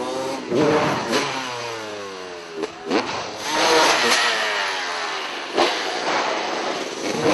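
Freestyle motocross dirt bikes revving hard, their engine note climbing and then falling away several times over as riders throttle up the ramp and come off the gas. A few short sharp knocks come in between.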